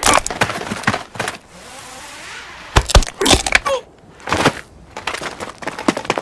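Film fight sound effects: a quick series of hard hits, cracks and crashes, with something breaking. A hissing rush runs about two seconds in, then more sharp impacts follow.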